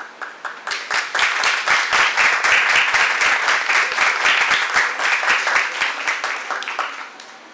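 Audience applauding. The clapping builds up within the first second, holds, then thins out and dies away near the end.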